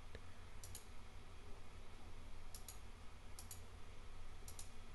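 Computer mouse clicking four times, spaced roughly a second apart; each click is a quick double tick.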